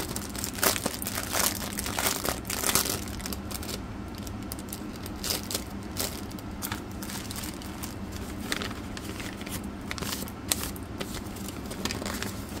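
Clear plastic bags of pre-bagged diamond painting drills crinkling as they are handled and turned over, in irregular crackles that are busiest in the first few seconds.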